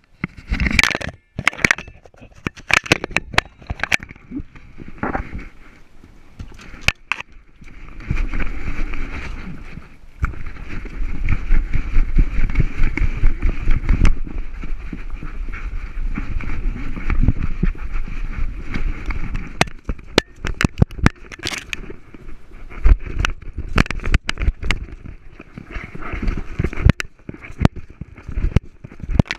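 Handling noise from an action camera strapped to a puppy's harness: repeated clicks, knocks and rattles as the puppy moves. Through the middle stretch, while it runs, there is a steady deep rumble.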